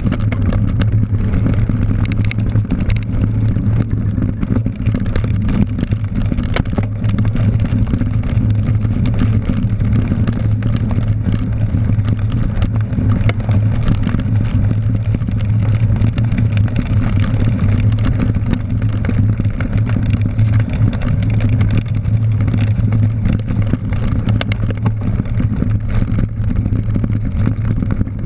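Steady rumble of a cyclocross bike riding fast over grass and dirt, the tires' rolling noise mixed with wind buffeting the microphone, with scattered small knocks from bumps in the ground.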